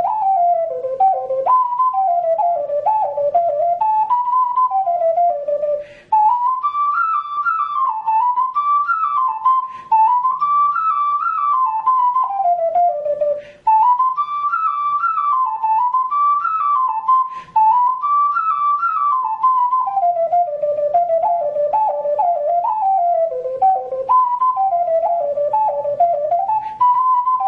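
A 12-hole alto C ocarina playing a jig solo: a quick running melody of clear, pure notes, with short breath breaks between phrases.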